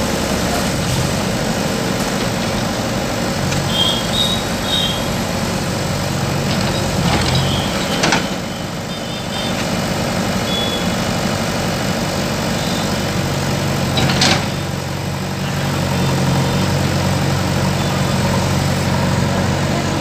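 Diesel engines of JCB 3DX backhoe loaders running steadily as the backhoes dig, with two sharp knocks about 8 and 14 seconds in and a few short high beeps around 4 seconds.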